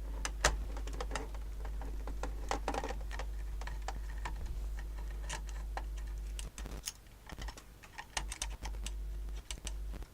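Irregular small clicks and taps of a screwdriver and metal screws being worked out of a TV chassis panel, over a steady low hum that cuts out for a second or so past the middle.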